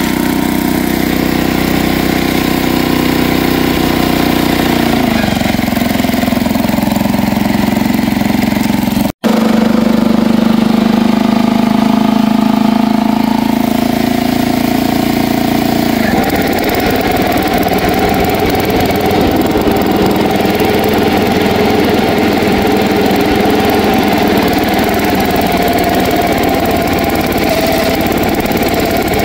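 A 1960s Bolens 1050 garden tractor's 10 hp engine running under load while its mower deck cuts grass. The engine note drops about five seconds in and turns rougher from about sixteen seconds, with a brief dropout about nine seconds in.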